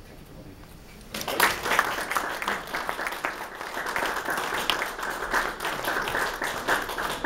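Audience applauding, breaking out suddenly about a second in and carrying on as a dense, steady patter of many hands clapping.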